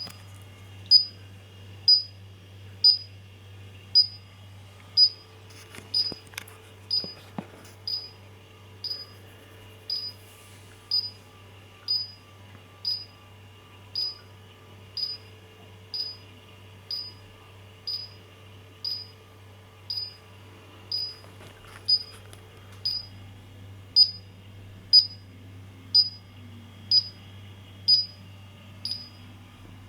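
Paradox MG5050 alarm system sounding its exit-delay countdown after being armed: one short high-pitched beep about every second, over a steady low hum.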